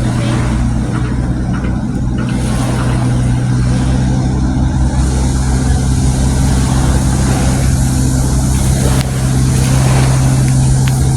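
An engine running steadily with an even low drone that holds one pitch throughout.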